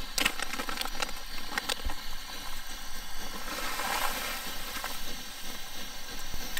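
Pressurized liquid-fuel camp stove burning with a steady rushing sound, like a train, under a pot of boiling water, oil and tamari sauce. A plastic zip bag crinkles as it is opened in the first couple of seconds. About four seconds in, dried soy curls and seasoning are poured into the boiling liquid and sizzle.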